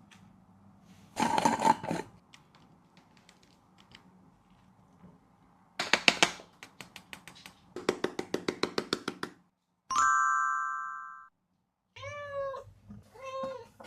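Dog chewing and crunching food in bursts of crackling clicks, the last a quick run of crunches. A bell-like ding rings out and fades, then an animal gives two short meow-like cries.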